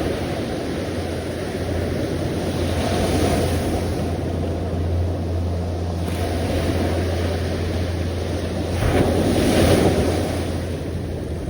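Sea waves washing in, with a steady low rumble of wind on the microphone; a louder wave rushes in about nine seconds in.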